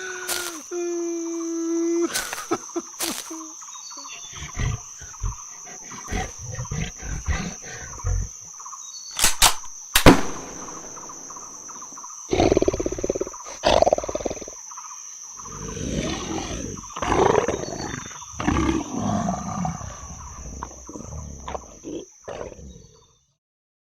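Layered horror sound effects: a steady high-pitched whine under sharp clicks and knocks, with rough growling, roar-like bursts building in the second half. Everything cuts off abruptly near the end.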